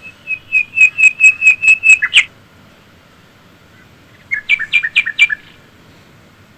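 A bird calling loudly: a quick run of about ten clear, even whistled notes over two seconds, ending in a sharp falling note. A shorter phrase of down-slurred notes follows about four seconds in.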